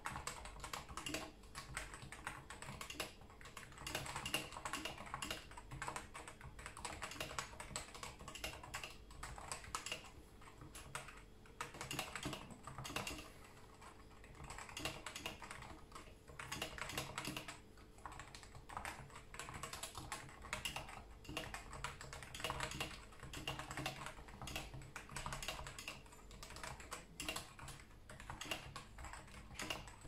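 Continuous fast typing on a Cooler Master Novatouch tenkeyless keyboard with stock 45 g Topre switches and stock ABS keycaps: a dense, steady stream of keystrokes.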